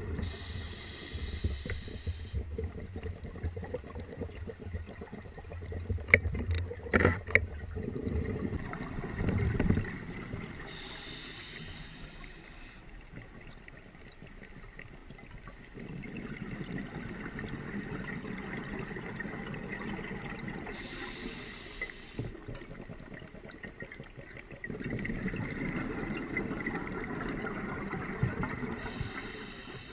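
Underwater scuba breathing: a bubbling rush of exhaled regulator bubbles about every ten seconds, each lasting a second or two, with a low muffled rumble and a few sharp knocks between breaths.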